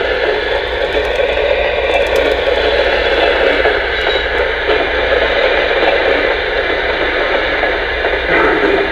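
A Lionel O scale smoking mechanical reefer car's onboard sound effects through its small speaker: the diesel refrigeration generator running steadily, mixed with rattling and clatter as the car rolls on the track.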